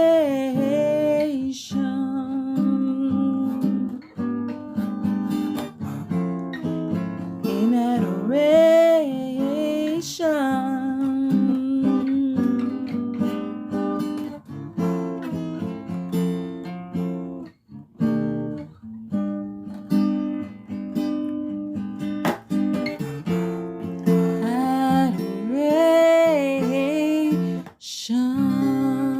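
Worship music: an acoustic guitar playing chords, with a singing voice that rises and falls in a few places.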